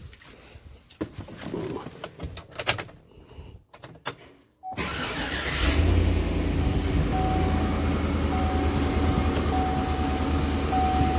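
2008 Chevy Avalanche's V8 engine started about five seconds in: a brief crank, then it settles into a steady idle. Before the start, a few light clicks and knocks; over the idle a high steady tone comes and goes.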